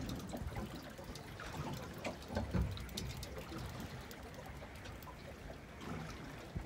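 Seawater lapping and splashing irregularly against the hull of a small drifting boat.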